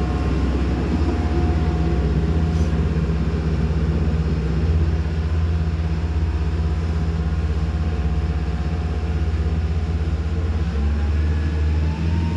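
Boat engine running steadily under way, a loud low drone with water and hull noise beneath it. The engine pitch rises a little near the end.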